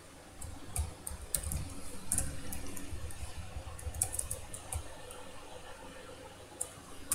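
Typing on a computer keyboard: scattered keystroke clicks in short irregular clusters, with pauses between them.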